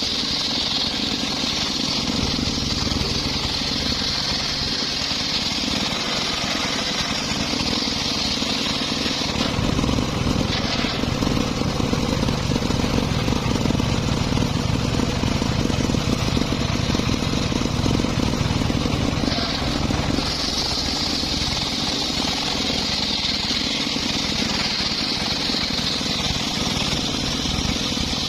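A circular saw runs continuously, cutting mahogany. A steady high whine from the spinning blade gives way to a louder, lower, rougher sound from about ten seconds in. The whine returns at about twenty seconds.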